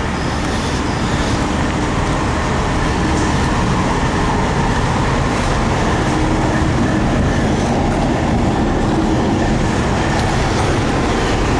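Diesel semi-truck engine idling: a loud, steady low rumble.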